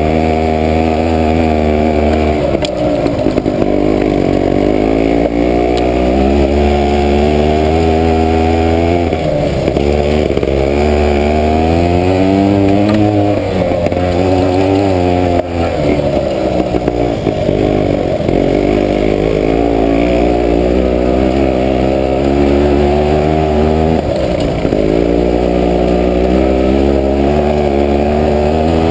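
Off-road motorcycle engine running under riding load, its pitch rising and falling again and again as the throttle is opened and eased every few seconds.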